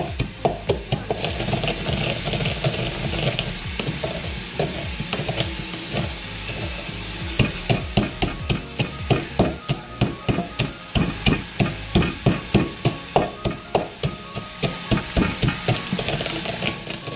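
Wooden pestle pounding and crushing roasted peanuts in a bowl: repeated dull thuds with crunching, coming fastest and most regularly, about two to three strokes a second, in the second half.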